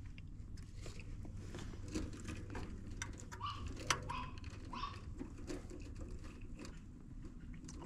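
Wiring being handled at an air handler: scattered light clicks and rustles over a steady low hum, with three short high squeaks about halfway through.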